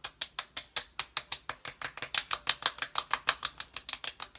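Palms rapidly patting and slapping the skin of the face, about seven soft smacks a second, to press skincare lotion into the skin.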